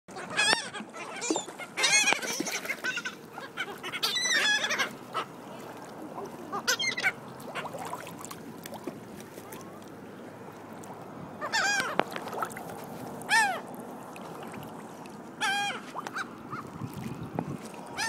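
Water sloshing and splashing around a camera held at the surface, broken by about seven short, squeaky pitched calls that rise and fall in pitch.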